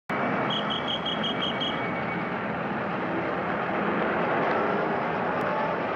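Steady din of busy city street traffic, trolleybuses and cars passing. About half a second in there is a quick run of about seven short high pips.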